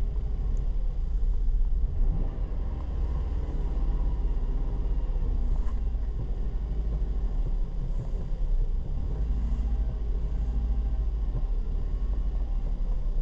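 Dodge Caravan's 3.3-litre V6 idling steadily while warming up.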